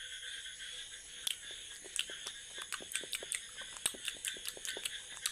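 Rapid, irregular mouth clicks and smacks, like chewing, coming more thickly after about a second, over a faint steady high whine.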